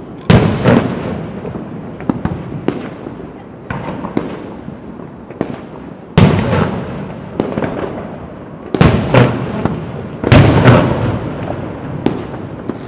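Aerial fireworks shells bursting in a series of loud bangs, each trailing off in a long rumbling echo, with smaller pops and cracks between. The biggest bangs come just after the start, about six seconds in, and twice near the end.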